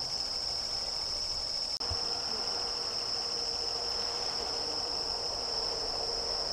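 A steady, high-pitched chorus of night insects trilling without a break, dipping out for an instant just under two seconds in.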